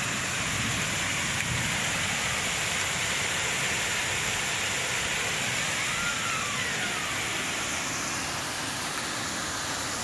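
Heavy downpour in a summer hailstorm: a steady, dense hiss of rain falling.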